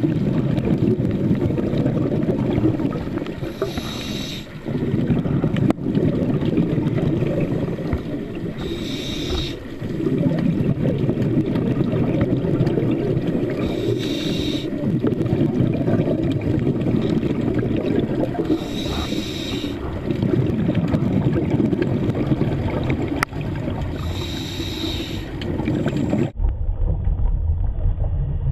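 Scuba diver breathing through a regulator underwater: a steady rumbling hiss with a louder rush of exhaled bubbles about every five seconds. Near the end the sound cuts suddenly to a low, muffled rumble.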